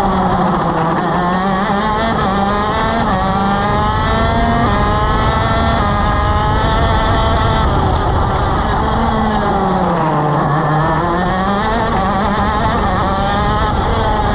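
125cc two-stroke shifter kart engine at racing speed. Its pitch climbs in steps as it shifts up through the gears and falls away twice as the kart slows for corners, near the start and about ten seconds in.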